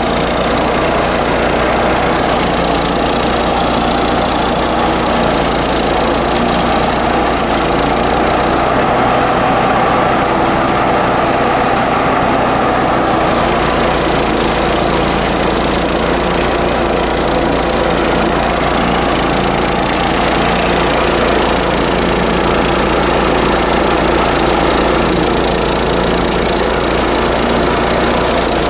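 Small engine running steadily, driving a rice thresher. The high end brightens a little about halfway through.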